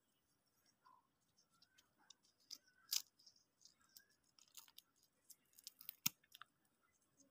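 Faint crackling and clicking of granular quartz crystals being crumbled and pulled apart between the fingers, with a few sharper cracks, the loudest about six seconds in.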